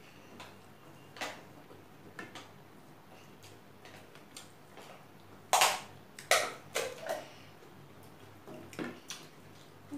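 Mealtime sounds of eating by hand: scattered clicks and knocks of fingers and food against plates and a plastic water bottle being handled. The loudest sharp clicks come in a quick cluster a little past halfway, with a few more near the end.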